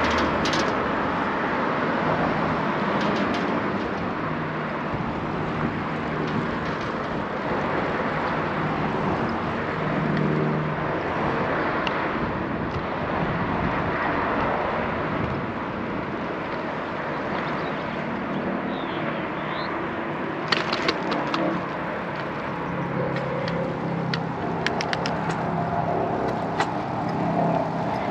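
Steady road traffic noise with motor vehicles passing, their engines rising and fading in the low range. From about twenty seconds in come several short, sharp clicks and rattles.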